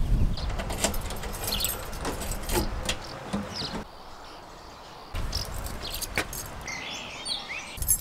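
Wind buffeting the microphone with a low rumble, easing for about a second midway, and birds chirping now and then over it. Near the end comes a brief jingle of keys.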